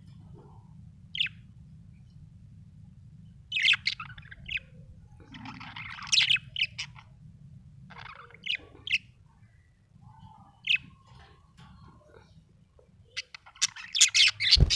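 A budgerigar chirping in short, scattered bursts of quick high chirps, with a fast run of chirps near the end. A faint low hum runs underneath.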